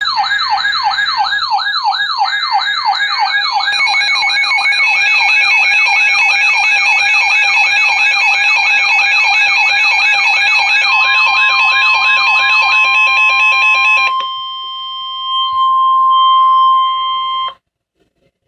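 Layered electronic alert tones: a rapid siren-like warble rising and falling about four times a second over steady high beeps. A steady single-pitch alert tone joins partway through. After the warble stops, the steady tones hold on alone and then cut off suddenly.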